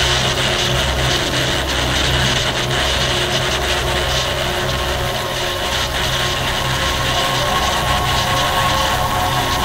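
Dense, steady industrial noise drone with a low pulsing throb underneath and a few held tones above it: a dark-ambient noise soundtrack.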